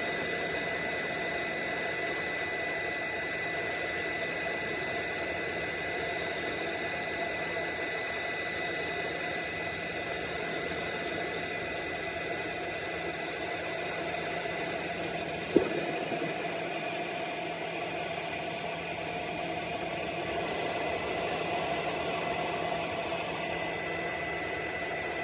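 Hot air rework gun blowing steadily over a small circuit board to reflow the solder paste: an even rush of air with a thin steady high whine. One short click about fifteen seconds in.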